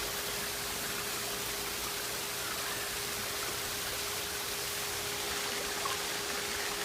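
Steady rush of running water from a mini-golf course's artificial water feature, with a steady hum underneath.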